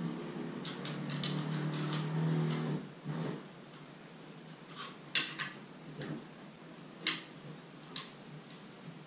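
Light metal clicks and taps from hands working the roller-wheel adjustment nuts and bolts on a CR-10 3D printer's aluminium frame, scattered about a second apart in the second half. A low steady hum runs through the first three seconds.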